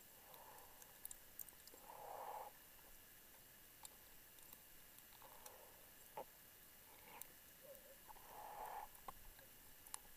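Faint, muffled breathing of a diver on a closed-circuit rebreather, soft puffs every second or two, with a few light clicks of gear.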